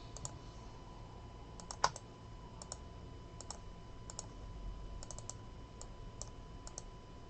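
Faint, scattered clicks and taps of a computer mouse and keyboard, one a little louder about two seconds in.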